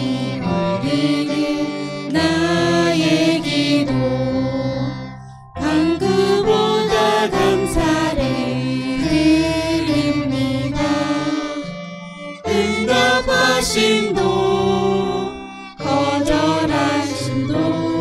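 A small praise team of men's, women's and a child's voices singing a Korean worship song through microphones, with violin accompaniment. The singing comes in phrases, with three short breathing breaks.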